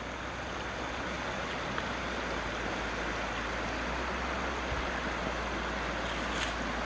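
A small mountain stream running over rock slabs: a steady, even rush of water.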